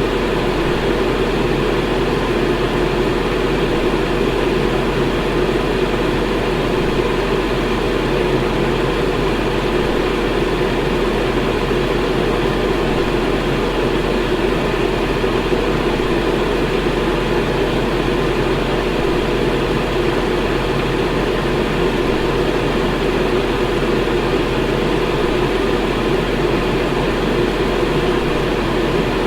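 Electric fan running steadily: an even whoosh of moving air centred low-mid, with a low hum underneath.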